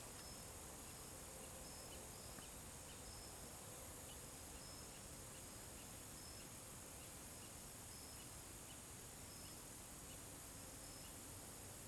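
Faint chirping of insects, short high chirps repeating about once or twice a second over a steady high hiss.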